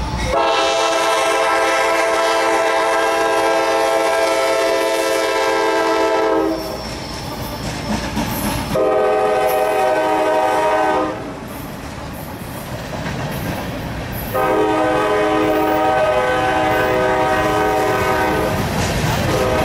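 Diesel freight locomotive air horn sounding for a grade crossing: a long chord blast of about six seconds, a shorter blast of about two seconds, then another long blast, with the rumble of the passing train between them.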